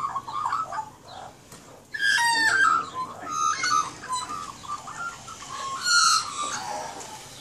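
Australian magpies calling with fluty, warbling notes that slide in pitch, in bursts near the start, about two seconds in and again about six seconds in.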